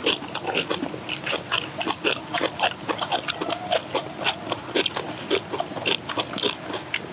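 People chewing kimchi and rice with their mouths open: wet smacking and crisp crunching, a few bites a second.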